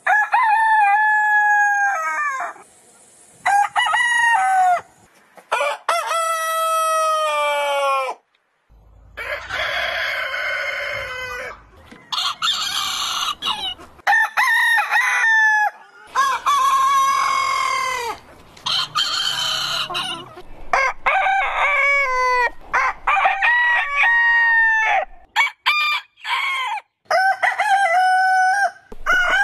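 Roosters crowing one after another: about a dozen separate cock-a-doodle-doos from different birds, each a loud pitched call ending in a long held note, with abrupt breaks between crows.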